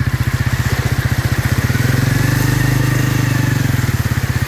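Honda motorcycle's single-cylinder engine running with an even pulsing exhaust beat as it rides through shallow floodwater on the road, picking up a little in the middle and easing off again.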